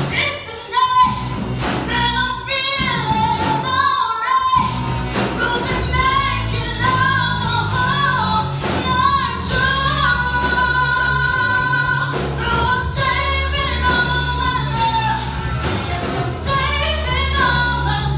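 A woman singing a ballad-style song into a handheld microphone over backing music, holding long notes with vibrato; the backing's bass fills in about four and a half seconds in.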